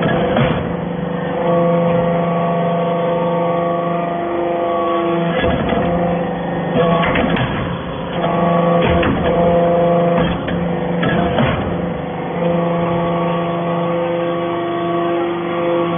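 Hydraulic metal-shavings baler running: a steady machine hum with a pitched whine that swells and fades in stretches of a few seconds, broken several times by clattering metal knocks.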